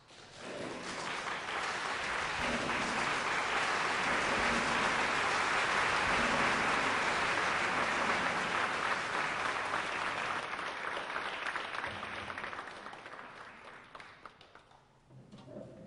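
Audience applauding, rising quickly at the start, holding steady, then dying away over the last few seconds.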